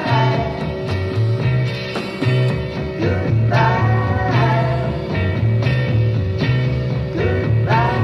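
1960s British beat group playing a rock song in a BBC studio session, recorded off FM radio onto cassette tape: a steady bass line, electric guitar and drums, with sung vocal phrases about halfway through and again near the end.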